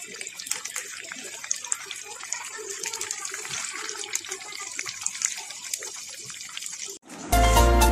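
Batter-coated chicken pieces deep-frying in hot oil in a pan: a steady sizzle full of small pops and crackles. About seven seconds in it cuts off and loud music starts.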